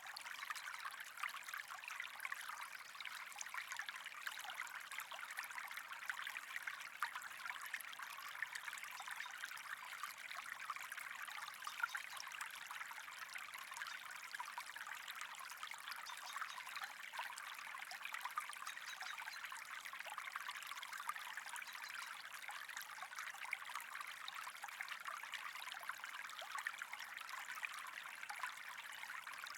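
Running water trickling steadily, a dense even patter of small splashes without a break.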